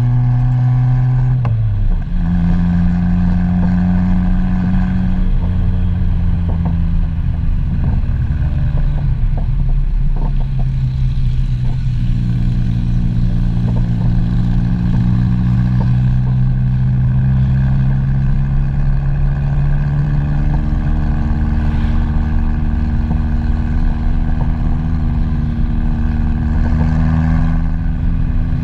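Vehicle engine running under load, heard from a camera mounted on the vehicle. The revs drop sharply at a gear change about two seconds in, then hold fairly steady with slow rises and falls in pitch.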